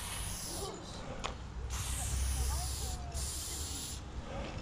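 Aerosol spray-paint can spraying in three hissing bursts: a short one at the start, then two longer ones about two and three seconds in, each cut off sharply as the nozzle is released.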